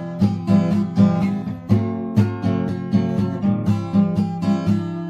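Background music: acoustic guitar plucking and strumming in a steady rhythm.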